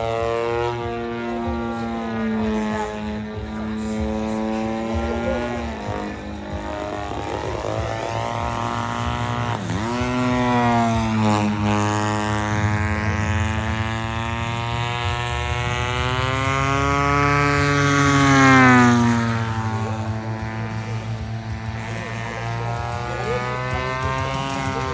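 Radio-controlled aerobatic model airplane flying, its engine and propeller sound sliding up and down in pitch with throttle changes and passes. About ten seconds in, the pitch drops sharply and then climbs again; it is loudest a little past the middle.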